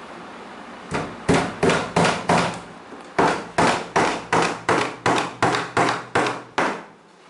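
Hammer driving nails into a wooden keyboard stand: sharp strikes about three a second, five in a row, a short pause, then about eleven more.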